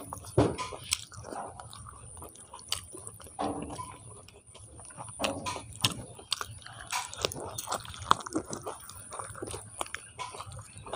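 Close-miked chewing and wet mouth smacking of someone eating roast whole chicken by hand, with irregular sharp clicks scattered through.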